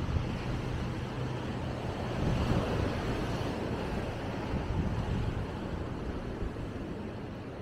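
Wind noise on the microphone over a steady wash of ocean surf and road traffic, with a faint engine hum in the first couple of seconds.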